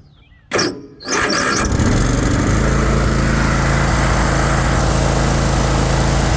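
Troy-Bilt Mustang XP zero-turn mower's 24-horsepower Kohler V-twin engine starting on choke: a brief crank, then it catches about a second in and runs steadily.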